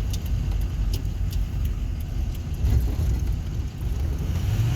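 Vehicle driving slowly, heard from inside the cab: a steady low engine and road rumble, with a few faint clicks in the first couple of seconds.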